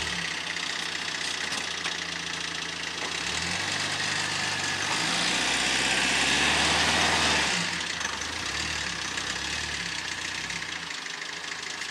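Motor vehicle engine running, its low hum shifting in pitch a few times, with a rushing noise that swells for a few seconds in the middle.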